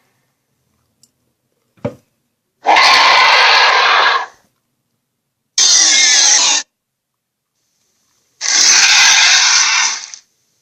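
Animated-film monster roar sound effect: three harsh, screeching roars of one to two seconds each, with a short knock just before the first.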